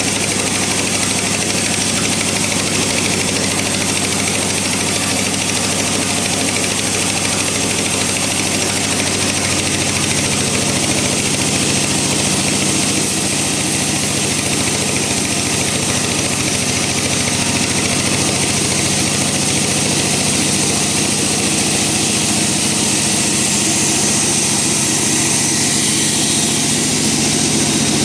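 Bandsaw running steadily, its blade cutting through a log with a constant motor hum and hiss.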